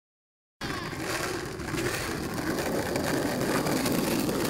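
Skateboards rolling over asphalt: a steady rolling noise that starts about half a second in and grows slightly louder.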